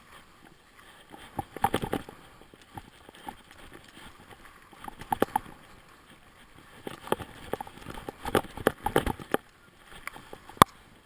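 Snowboard sliding over snow, its edges scraping and chattering in bursts through the turns, with one sharp knock near the end.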